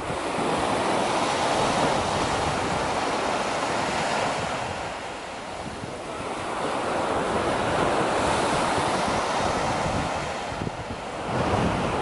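Small sea waves breaking and washing up a sand beach, the surf noise swelling and ebbing in slow surges as each wave runs in and draws back.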